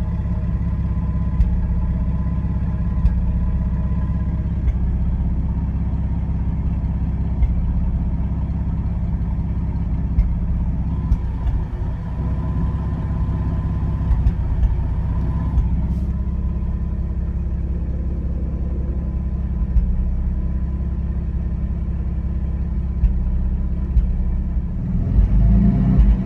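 Ford 4.9-litre straight-six engine of a 1995 F-150 idling warm, with a short uneven stumble every few seconds at irregular intervals: a random misfire at warm idle. Near the end the engine gets louder and rougher.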